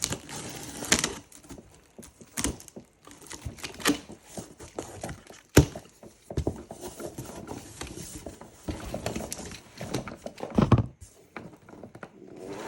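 A suitcase being unpacked and handled: irregular knocks and clicks with rustling, including one sharp knock about five and a half seconds in.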